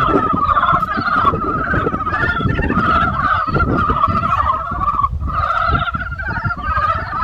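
A dense spring chorus of many frogs calling at once, rapid trilling calls overlapping without a break, over a low rumble.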